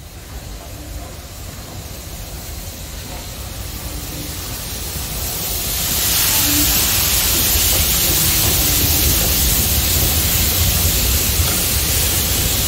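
Steam-hauled excursion train approaching, its noise growing louder, with a strong hissing rush setting in about six seconds in and holding steady.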